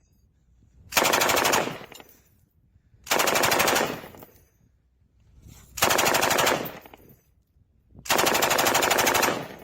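Light machine gun firing four short bursts of rapid automatic fire, a couple of seconds apart, each ringing out briefly after it stops; the last burst is a little longer.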